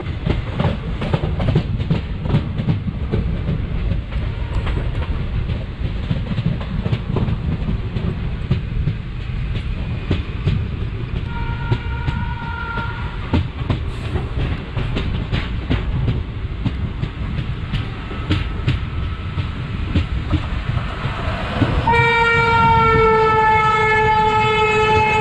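Moving passenger train heard from an open coach door: a steady rumble with wheels clicking over rail joints. A brief horn sounds about halfway through, and near the end a long horn starts as an overtaking WAP-5 electric locomotive draws alongside on the next track, its pitch dropping slightly as it passes.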